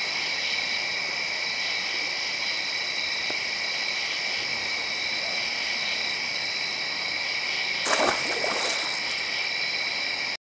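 Night insect chorus: a steady, high-pitched drone of several shrill tones held without a break. About eight seconds in comes a brief rustle and knock, the loudest sound.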